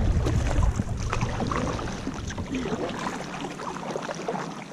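Kayak paddle strokes: water splashing and dripping off the paddle blade in many small, irregular splashes that fade toward the end. Wind buffets the microphone during the first second.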